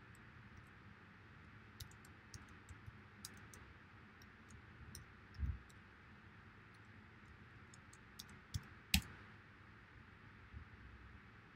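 Faint computer keyboard typing: a scatter of light key clicks as a password is entered, with a dull thump midway and one sharper, louder click near the end as the login is submitted.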